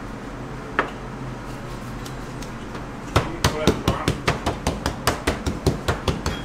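Rapid knocking on a stainless-steel worktable, about five sharp strikes a second, starting about three seconds in: a wooden spatula tapped across scallion-covered dough while making scallion pancakes.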